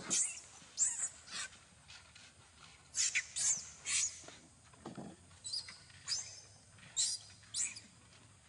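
Young macaque screaming in repeated short, high-pitched shrieks while an adult grabs and holds it, distress cries.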